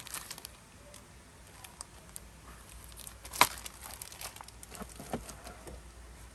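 Packaging and paper being handled: rustling and crinkling with scattered small clicks, and one sharper knock about three and a half seconds in.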